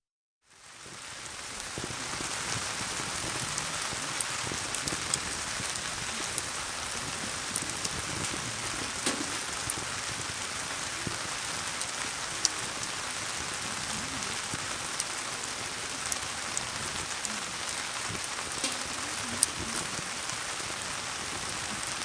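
Wood campfire crackling: scattered sharp pops and snaps over a steady hiss, fading in over the first couple of seconds.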